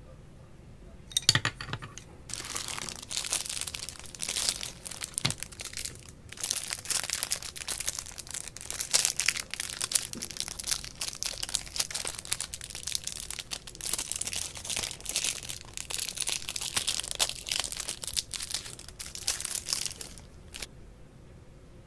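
A clear plastic pen wrapper crinkling as it is handled and pulled open, almost without a break, with a short pause about six seconds in. A sharp knock sounds about a second in.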